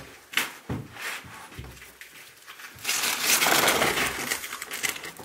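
Knocks and scuffs of a person climbing down a wall, then a loud scraping rustle lasting about a second and a half in the middle.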